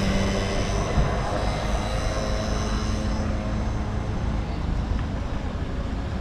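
A steady, low engine drone with a held hum, the sound of a motor passing.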